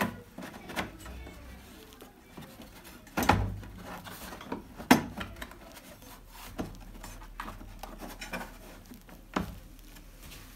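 Plastic back cover of an LED TV being handled and fastened during reassembly: scattered sharp knocks and clicks about every second or two, the loudest about three and five seconds in, with light rubbing between them.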